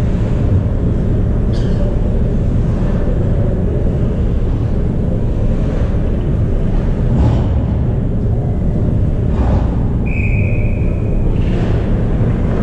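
Ice hockey rink noise: a steady low rumble with a few short scrapes, and one steady whistle blast, likely the referee's, about ten seconds in, lasting just over a second.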